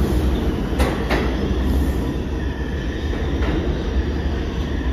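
New York City subway train running on the Lexington Avenue line: a steady low rumble, with two sharp wheel clicks about a second in and a faint high wheel squeal in the middle.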